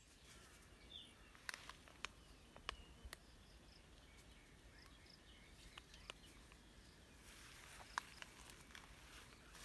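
Near silence: faint outdoor garden ambience with a few soft scattered clicks.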